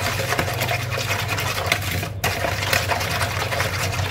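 Wire whisk beating eggs and sugar in a plastic bowl: rapid, even scraping and sloshing strokes, with a brief pause a little over two seconds in.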